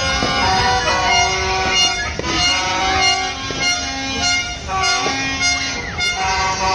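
Many horns honking and tooting at once, overlapping held notes at several different pitches that start and stop every second or so, over a constant crackle and rumble of New Year's fireworks.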